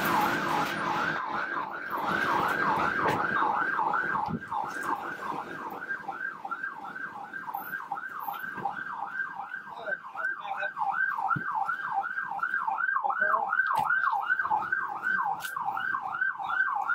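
An electronic siren sounding a fast yelp, its pitch sweeping up and down about three times a second without letup, with a few faint clicks and knocks over it.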